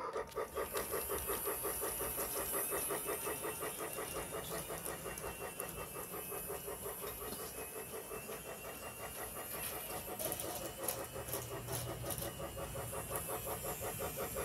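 Lionel Mickey Mouse toy train running on its plastic track, its motor and wheels making a steady, rapid rhythmic clatter.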